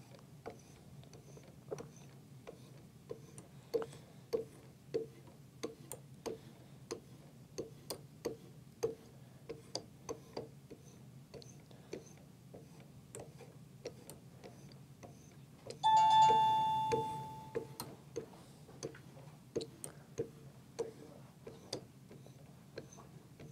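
Light, evenly spaced ticks, about three every two seconds, from strokes of a leather strop on a Work Sharp Precision Adjust sharpener's guided arm along a clamped knife blade. Near two-thirds of the way through, one clear metallic ring sounds and fades over about two seconds.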